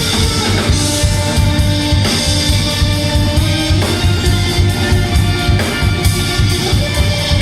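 Live rock band playing loudly: electric guitars, bass and a drum kit keeping a steady beat.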